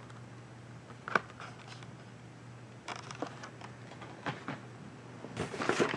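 Blister-carded Hot Wheels cars being handled and taken from a cardboard case: scattered light clicks and rustles of plastic blisters and card, with a sharper click about a second in and busier rustling near the end.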